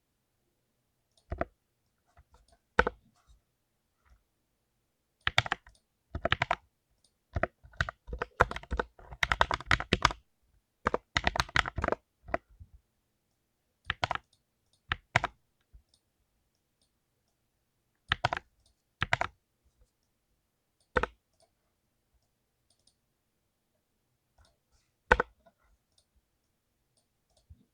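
Full-size mechanical keyboard with lubed blue (clicky) switches being typed on: scattered single clicks and short bursts, with a dense flurry of keystrokes around the middle and quiet pauses between.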